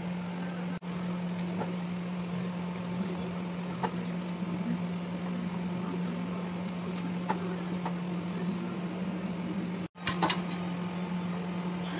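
Spatula stirring thick misal curry in a nonstick pan, with a few light taps and clinks against the pan, over a steady low mechanical hum. The sound cuts out for a moment twice.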